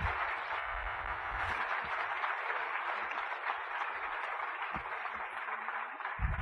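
Audience applauding steadily in a large hall, with a few low thumps near the end.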